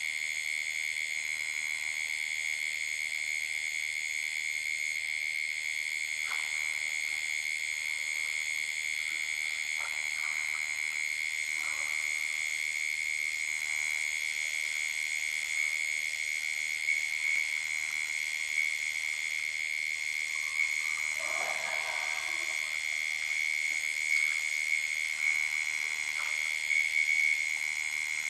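Steady shrill night chorus of insects and frogs at a waterhole: one piercing high tone with fainter layers above it, running unbroken. Faint splashes and trickles of water from an elephant drinking come and go over it, with a brief louder patch a little past the middle.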